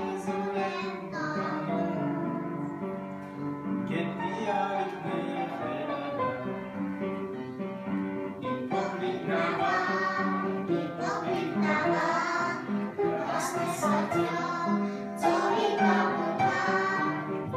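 A group of young children singing a song together, with a plucked string instrument accompanying them.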